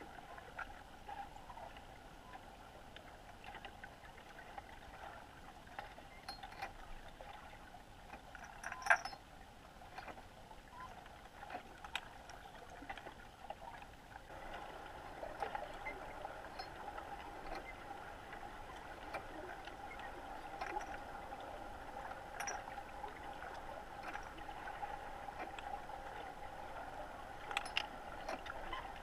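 Underwater ambience picked up by a camera sitting on a lake bottom: a steady hum that grows a little louder about halfway through, with scattered faint ticks and one sharper click about nine seconds in.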